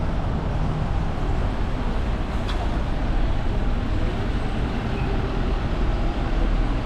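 Route bus engine running steadily, heard from inside the passenger cabin as a low rumble, with a faint click about two and a half seconds in.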